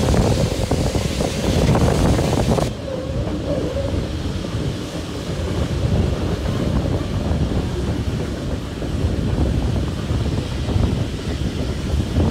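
Running noise of a steam-hauled train's carriage heard from an open window: a steady rumble of wheels on rail with some wind on the microphone. About three seconds in, the hiss in the upper part of the sound drops away suddenly, leaving mainly the low rumble.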